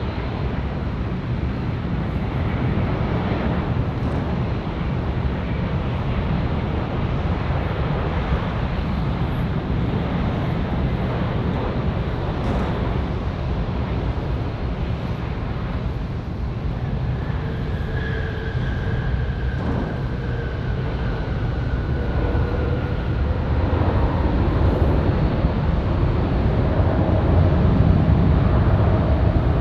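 Boeing 787-9 airliner landing, its Rolls-Royce Trent 1000 engines giving a steady jet rumble. A faint high whine slides slightly down in pitch in the middle, and the noise grows louder over the last few seconds as the jet rolls out on the runway.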